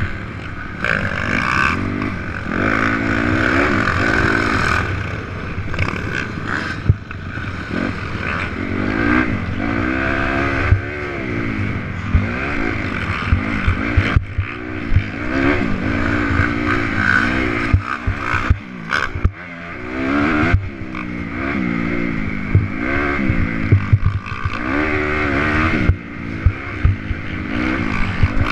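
Honda CRF250R's single-cylinder four-stroke engine revving up and dropping back again and again as the rider accelerates and shifts gears, heard from the rider's helmet camera. Sharp knocks come through often over the bumps.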